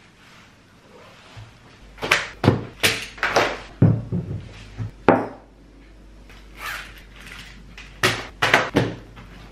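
Books, an apple, a pencil case and a mug being set down on a wooden tabletop: a run of knocks and thuds. They come thick between about two and five seconds in, and three more follow near the end.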